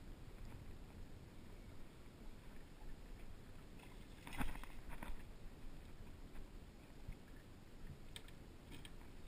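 A hooked smallmouth bass splashing at the surface about four seconds in, a short burst of splashes that is the loudest sound here. Low, steady water noise around a small boat runs underneath, with a couple of light taps near the end as the fish is brought to the boat.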